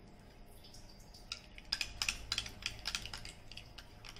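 Steel spoon clinking against a glass bowl while stirring cornflour and water into a paste, a quick, irregular run of light clinks starting about a second in.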